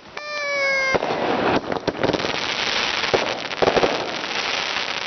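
Fireworks and firecrackers going off continuously in a dense run of crackling and popping. A short horn-like tone sounds briefly near the start.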